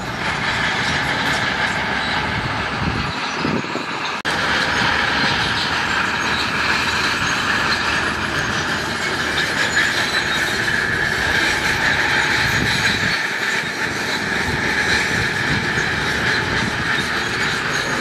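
Shantui crawler bulldozer on the move, its steel tracks squealing and clanking steadily over the running diesel engine.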